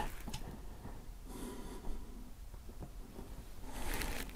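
Quiet handling as a motorcycle fuel tank is lifted and propped up: a couple of light clicks and two soft breaths.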